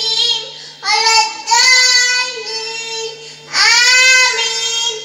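A young girl singing solo into a microphone in long held phrases with short pauses between them, over a faint steady low hum.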